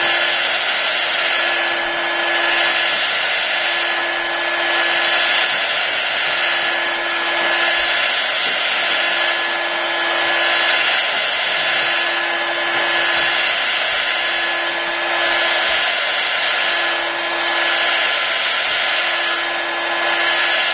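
Hot-air gun blowing steadily with a constant motor hum, its rush swelling and easing about every two seconds as it is swept back and forth along the iPad's edge to soften the glass adhesive.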